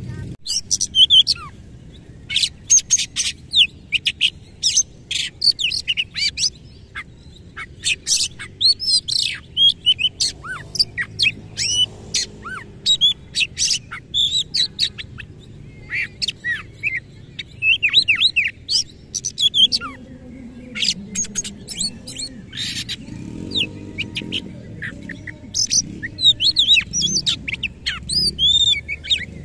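Oriental magpie-robin singing hard: rapid bursts of sharp, harsh notes and quick whistles, working in phrases mimicked from other birds, with brief pauses between bursts.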